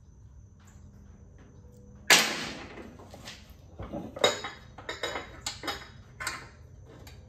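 Metal tools and hardware clanking: one loud metallic clank with a short ringing tail about two seconds in, then a run of lighter, irregular clinks and knocks.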